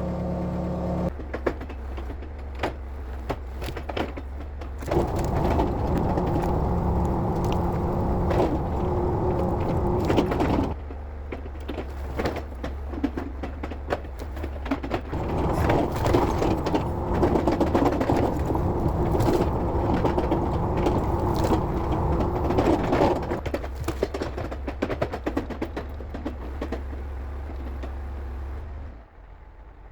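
Case 680G backhoe's diesel engine running steadily, working harder and louder twice for several seconds each as the machine is put to work. Frequent short clicks and knocks come through over the engine.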